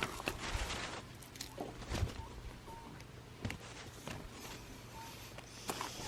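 Scattered light knocks and clicks with brief rustling, and a short faint tone recurring every second or so.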